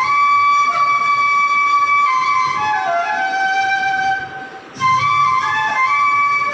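Bansuri (Indian bamboo flute) playing a slow melody: a long held note, then a phrase stepping down in pitch that fades out about four seconds in. After a short gap a new phrase begins.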